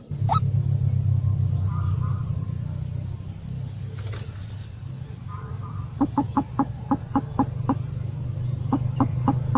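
Fowl clucking in quick runs of short calls, about four a second, coming in twice in the second half, over a steady low hum.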